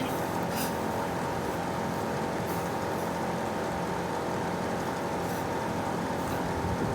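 Steady whirring hum of a running electric motor-driven fan, constant in level with a few steady tones and no hammer strikes.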